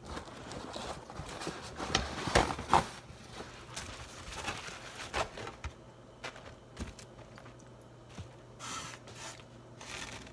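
Styrofoam takeout container and paper towel being handled on a counter: scraping and rustling, with a few sharp knocks, the loudest about two to three seconds in, over a faint steady hum.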